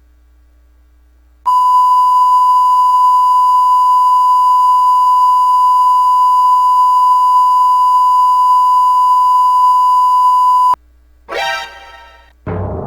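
A long, steady electronic beep at one pitch, the classic censor-bleep sound effect, lasting about nine seconds and cutting off abruptly. Two short ringing hits follow near the end, the second deeper and fading slowly.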